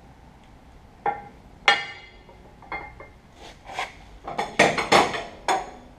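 Steel air-suspension parts clanking and clinking against the truck frame as they are handled and fitted, each knock ringing briefly. A few separate knocks come in the first half, then a quicker cluster of clanks a little past the middle.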